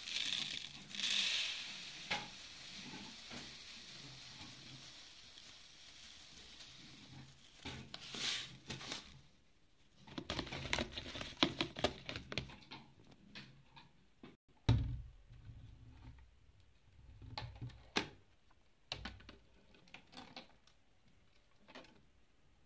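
Fine sand pouring from a carton into a plastic corner bath bowl with a hiss over the first couple of seconds. It is followed by scattered rustling, clicks and knocks as the cage items are handled, including a low thump a little past the middle.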